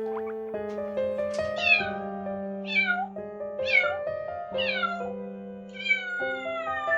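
Cat meowing five times, each meow falling in pitch and the last one longer, over soft piano music.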